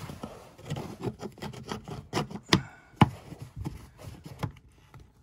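Plastic air filter cover being fitted onto the air intake housing of a Beta Marine 20 marine diesel: a run of small clicks, taps and rubbing of plastic on plastic, with two sharper clicks about two and a half and three seconds in.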